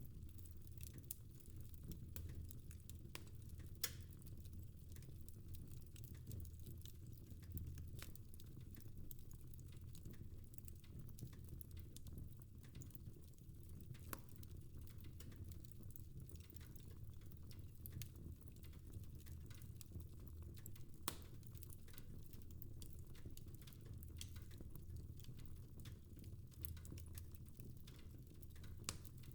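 Fire in a fireplace crackling: scattered sharp pops and snaps over a low steady rumble, with a few louder pops.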